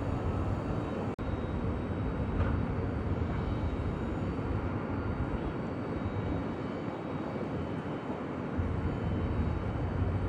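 Jet airliner engines making a steady rumble, growing heavier in the low end near the end.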